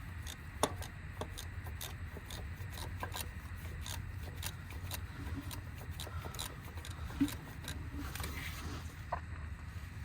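Scattered light clicks and rubbing from hand tools as a loose 13 mm nut is worked off the starter, over a steady low hum.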